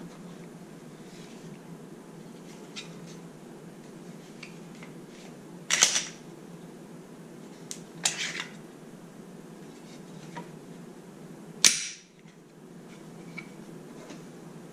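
Glock 48 pistol being handled: its slide racked and let snap forward, giving three sharp metallic clacks about six, eight and twelve seconds in, the last the loudest, with light handling clicks between.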